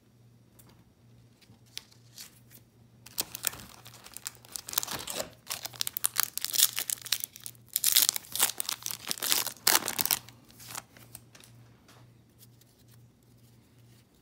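Foil wrapper of a Topps baseball card pack being torn open and crinkled by hand. After a few faint clicks, the crackling starts about three seconds in, is loudest in the middle and dies down a few seconds before the end.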